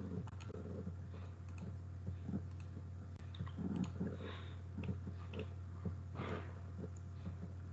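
Faint scattered clicks of a computer keyboard and mouse over a steady low hum, with a short rustle about six seconds in.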